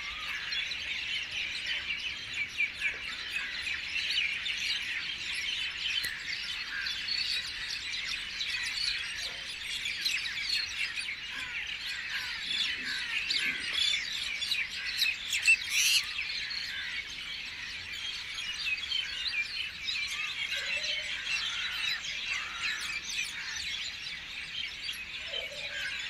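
Many birds chirping and twittering at once, a dense, unbroken chorus of short high chirps, with one brief sharp louder sound about sixteen seconds in.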